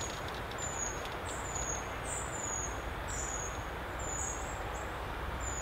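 A small bird's high, thin call, a short downward-sliding note repeated roughly once a second, over a steady outdoor background hiss.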